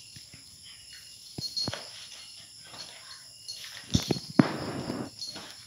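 Small dogs play-fighting on a tiled floor: scuffling and sharp clicks, rising to a louder tussle with knocks about four seconds in. Insects chirp steadily in the background.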